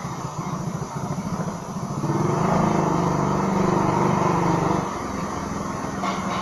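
Motorcycle engine running while riding, speeding up about two seconds in and easing off near the end.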